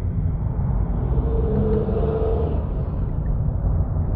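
Low, steady background rumble, with a faint held hum in the middle.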